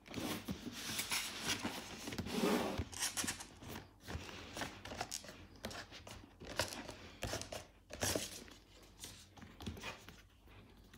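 Cardboard rustling and scraping as a printed card sleeve is slid off a cardboard gift box, with a few short knocks as the box is handled.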